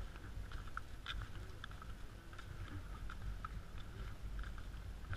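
Footsteps in flip-flops on wooden dock boards: light, irregular clicks and slaps, about two to three a second, over a low steady rumble.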